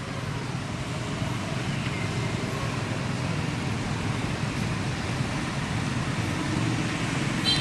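Steady low outdoor rumble, with a brief high chirp near the end.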